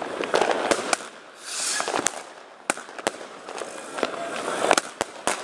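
Consumer fireworks going off: a string of sharp bangs, with bursts of dense crackling and a short hissing rush about one and a half seconds in.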